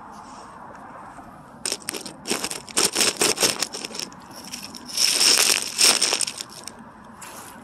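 Close, loud rustling and crunching in irregular bursts, starting nearly two seconds in, with the longest burst around five to six seconds in.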